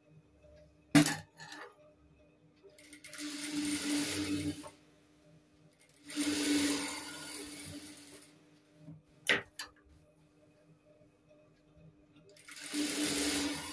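Industrial sewing machine stitching a blouse-cup dart in three runs of about two seconds each, with a faint steady hum between them. Two sharp clicks stand out, the loudest about a second in and another about nine seconds in.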